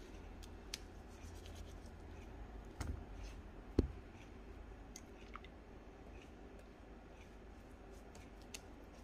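Silicone pastry brush stroking egg wash over a sheet of puff pastry: faint soft rubbing with scattered light ticks, and two soft knocks about three and four seconds in.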